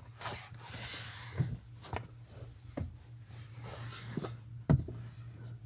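Faint scattered clicks and light knocks, about half a dozen, over a low steady hum, with the sharpest knock about three-quarters of the way through.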